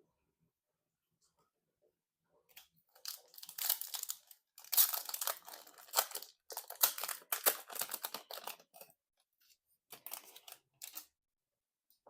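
A foil Magic: The Gathering booster pack wrapper being torn open and crinkled, in a run of irregular crackles that are loudest in the middle and die away near the end.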